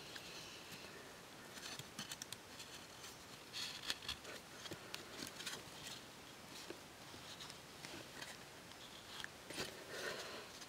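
Faint handling sounds of bamboo: a thin bamboo strip and split bamboo tube pieces clicking, scraping and rustling as they are bent and fitted together by hand, in scattered small clicks with a few brief clusters.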